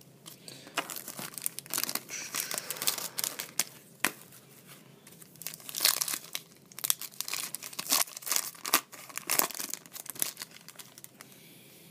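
Foil trading-card packs being torn open and crinkled by hand, in a run of irregular bursts of tearing and rustling.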